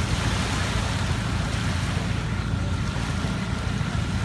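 Steady wind rumbling on the microphone over washing sea waves.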